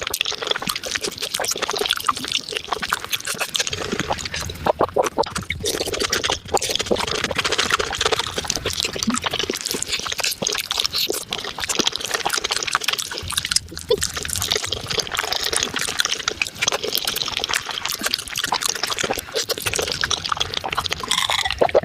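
Close-miked eating sounds of someone chewing spicy beef feet, sped up about five times, so the wet chewing and smacking of the gelatinous meat run together into a dense, continuous crackle.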